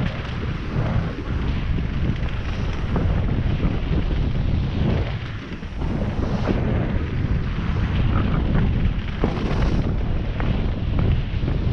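Wind buffeting the microphone of a mountain bike descending a dirt trail, over the rumble of its tyres and scattered clicks and rattles from the bike. The noise eases briefly about five seconds in.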